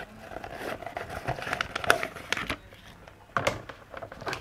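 Plastic and paper packaging crinkling and crackling as it is handled, with a run of sharper crackles around two seconds in and a louder one a little later.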